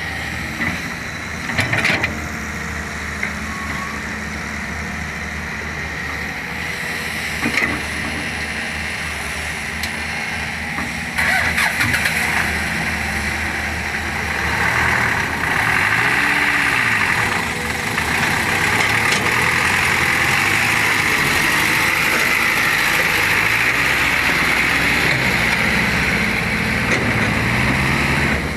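Heavy diesel engine of a working excavator running steadily, its note rising and falling as it works, with a few sharp metallic clanks. It gets louder about eleven seconds in.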